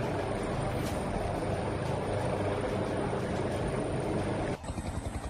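Firefighter rescue helicopter hovering low overhead, its rotor and turbine noise loud and steady. About four and a half seconds in the sound drops abruptly to a quieter, pulsing rotor beat.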